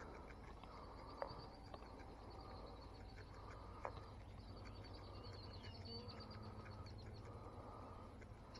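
Faint distant birdsong over quiet outdoor background: two trilled phrases of rapidly repeated high notes, with a couple of light ticks.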